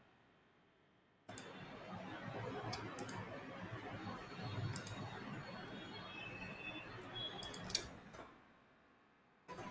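Scattered computer mouse clicks and keyboard taps, a handful of sharp clicks over a steady low background noise that comes in about a second in and fades out near the end.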